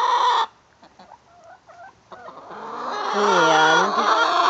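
Backyard laying hens calling: a long drawn-out call breaks off about half a second in, a few faint clucks follow, and another long drawn-out call swells from about two seconds in, dipping and wavering in pitch.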